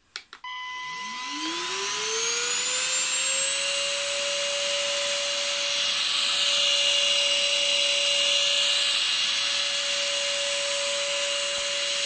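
SilverCrest Shaz 22.2 C3 cordless stick vacuum switched on at max power with a click. Its motor whine rises in pitch over about three seconds as it spins up, then holds steady with a high whistle over the rush of air while it is pushed across carpet sucking up dirt.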